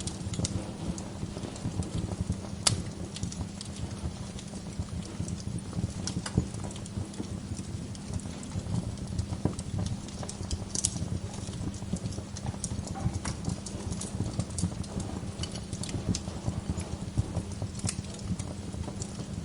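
Wood fire in a fireplace crackling, with scattered sharp pops over a steady low rumble.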